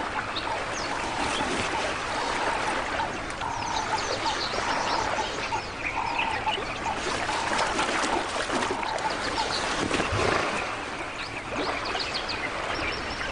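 River ambience: many short bird chirps and calls over the steady wash and trickle of water.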